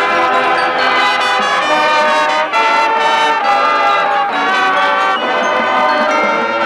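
High school marching band playing, its brass carrying held chords that change every second or so, with a brief break about two and a half seconds in.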